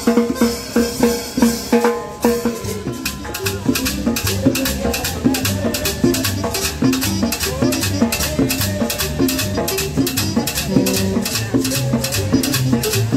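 Live street band playing dance music on conga, drums and upright bass, with a steady beat and a walking bass line. A rattling percussion beat comes in about four seconds in.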